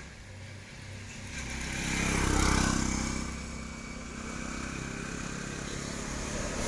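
A small engine running, growing louder to a peak about two and a half seconds in, then easing off to a steadier, lower hum.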